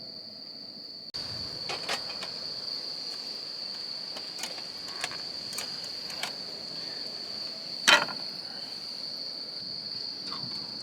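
Insects chirring in one steady high-pitched note. Scattered light clicks and knocks sound over it, with one sharper knock about eight seconds in.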